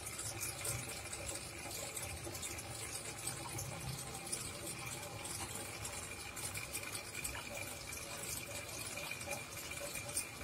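Aquarium water trickling and fizzing steadily, with a faint high steady whine running under it.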